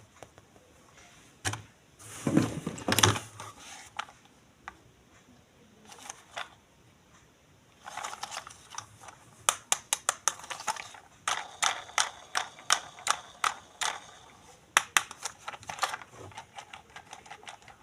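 Hands handling plastic toys and packaging. A rustling crinkle comes about two seconds in, then from about eight seconds on a quick run of sharp plastic clicks and taps.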